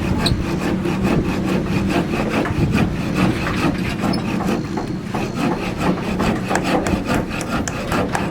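Fast, rough scraping strokes of hand-tool work, over a steady low hum.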